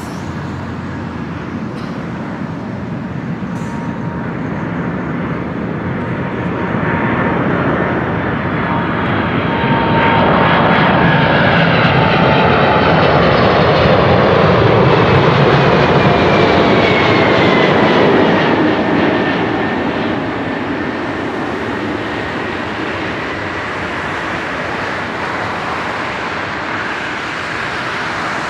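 Boeing 747-400 jet engines on landing approach, growing louder as the airliner passes low overhead, with a whine that slides down in pitch as it goes by, then settling to a steadier rumble as it descends toward the runway.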